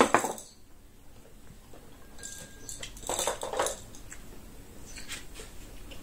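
Mouth sounds of people eating rice and stew by hand: chewing and lip-smacking in short bursts, loudest at the start and again about three seconds in, with a few faint clicks of food and fingers on the plates.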